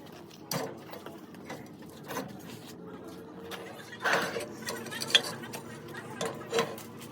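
Irregular metallic clicks and knocks, as of hand tools and metal parts being handled during a repair, the sharpest about half a second, four, five and six and a half seconds in, over a faint steady hum.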